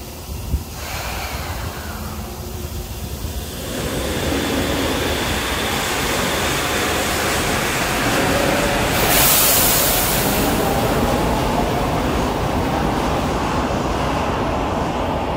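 Shonan Monorail suspended monorail train pulling out of the station. Its running noise grows louder from about four seconds in as it moves off, with a brief hiss about nine seconds in.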